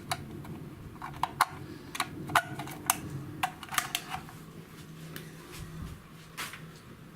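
Irregular sharp clicks and light taps, about a dozen in the first four seconds and one more near the end, as the repaired Samsung refrigerator is switched on and handled. A low steady hum comes in about five seconds in.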